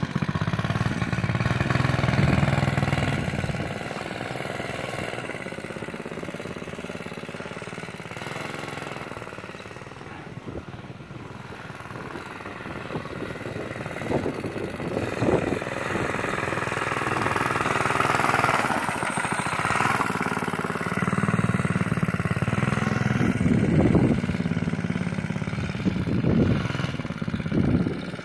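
A 5 hp single-cylinder mini bike engine running as the bike rides around, louder when it is near and quieter as it moves off, with several quick revs in the second half.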